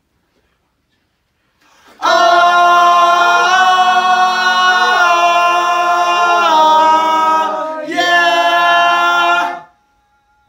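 Group of young male voices singing long held notes together a cappella into a microphone, loud, as a take of harmony vocals is recorded. The notes shift a few times, break briefly near the end, and a last held chord stops suddenly.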